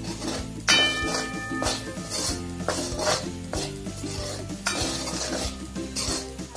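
Steel ladle stirring and scraping black-eyed peas frying in oil in a metal kadhai, in repeated strokes, with a light sizzle underneath.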